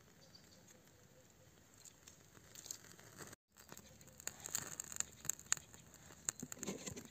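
Dry twigs and kindling of a small campfire crackling and snapping as they catch, mixed with rustling as tinder is fed in by hand. The crackles are sparse at first and come thick and sharp in the second half, after the sound cuts out briefly.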